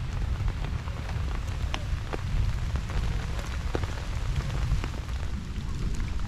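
Steady rain falling, with individual drops tapping close by over a dense low rumble.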